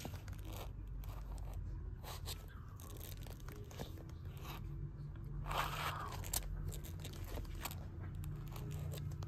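Bagged and boarded comic books being flipped through in a box: the plastic sleeves crinkle and the backing boards scrape, with many irregular short clicks. A steady low hum runs underneath.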